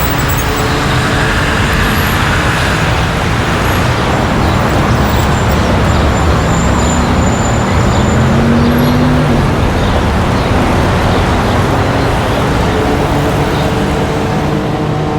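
Street traffic ambience: a steady, dense wash of passing road vehicles and engine hum, with one engine rising in pitch about halfway through.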